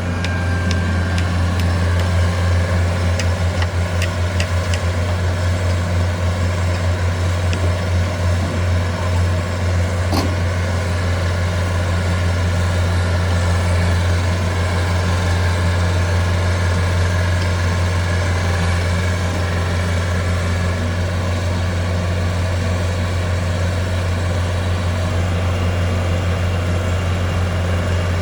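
A heavy engine running steadily with a deep, even hum, a few light clicks in the first few seconds and one sharp click about ten seconds in.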